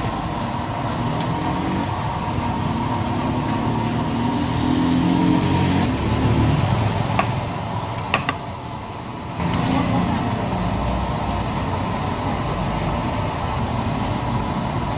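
Street noise of motor traffic running and passing, with a few sharp clicks about halfway through.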